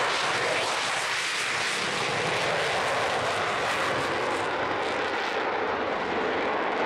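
Avro Vulcan B2 bomber's four Olympus turbojets at takeoff power as it lifts off and climbs away: a loud, steady rush of jet noise that turns slightly duller near the end.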